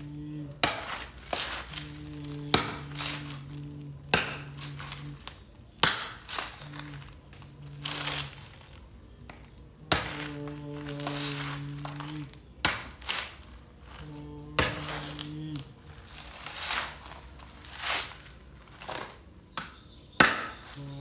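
Crisp snapping and crinkling as stems are pulled off fresh red chilies by hand, sharp clicks coming every second or two. Under them a low tone is held a second or two at a time, over and over.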